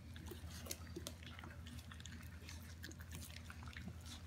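Basset hound puppies eating soaked puppy-food mush: faint chewing and small scattered clicks, over a steady low hum.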